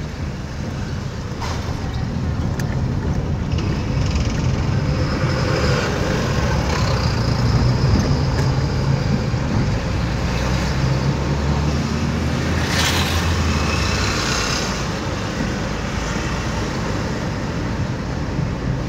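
A car driving in town: steady engine and tyre noise, with a brief hiss about two-thirds of the way through.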